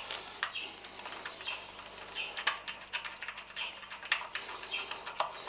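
Irregular small metallic clicks and ticks of a bolt and nut being threaded on by hand at a sump guard's clamp bracket, the fasteners and bracket knocking lightly.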